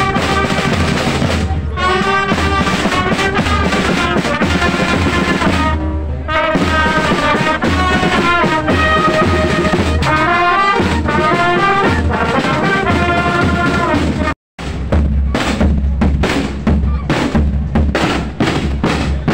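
Marching band playing a march on trumpets, clarinets and drums. After a sudden break about 14 seconds in, the drums take over with heavy bass drum beats under the music.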